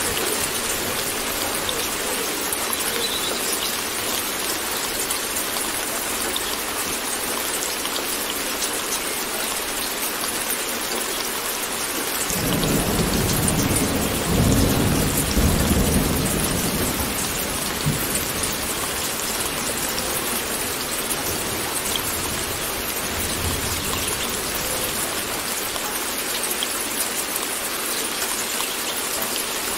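Steady rain, with a roll of thunder rumbling for several seconds a little before halfway through.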